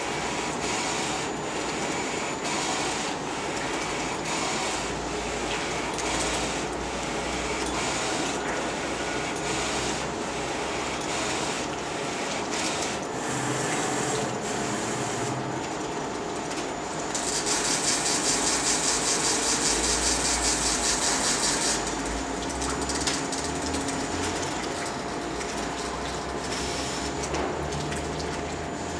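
Flatbed digital T-shirt (direct-to-garment) printer running, its print-head carriage shuttling across the shirts with a regular mechanical rhythm of strokes. For about five seconds past the middle, a louder, high-pitched fast buzz takes over, then the regular running resumes.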